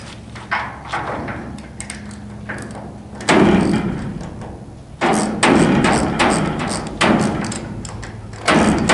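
Hand work on a wire pull cable and its black plastic pipe cover at a wooden frame: a few light knocks, then louder stretches of scraping and knocking about three, five and seven seconds in and again near the end.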